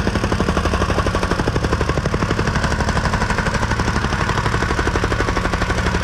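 Engine-driven jumping-jack rammer running at full speed, its foot pounding loose gravel fill in a fast, steady rhythm of about a dozen blows a second over the drone of its engine.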